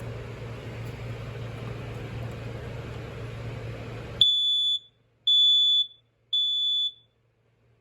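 A First Alert SA304 smoke alarm sounding its test alarm: three loud, high-pitched beeps about a second apart, the temporal-three alarm pattern, starting about four seconds in after a steady background hum.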